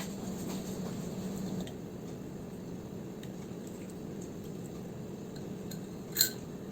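Light kitchen handling: a few faint taps and one bright clink of dishes or utensils about six seconds in, over a low steady hum that stops under two seconds in.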